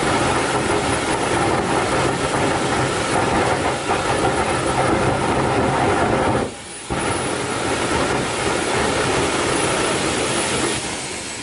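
Loud, steady mechanical noise, a rumble mixed with hiss, that cuts out for a moment about six and a half seconds in and then carries on, a little quieter near the end.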